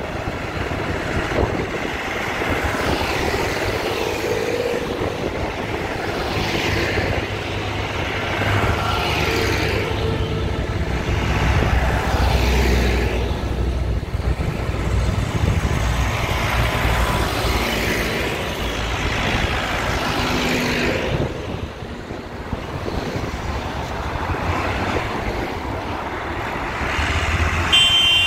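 Tractors and cars driving past one after another, diesel engines running with a steady low rumble that rises and falls as each vehicle goes by.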